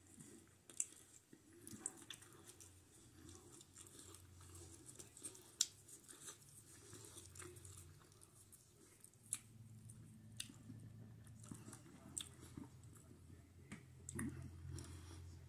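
A person chewing takeout food, faint, with scattered sharp mouth clicks and smacks every second or two.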